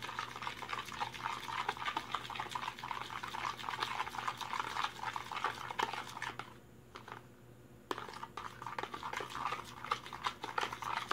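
A utensil stirring and scraping a wet mixture in a bowl, a quick run of clicks and scrapes that pauses briefly past the middle and then resumes.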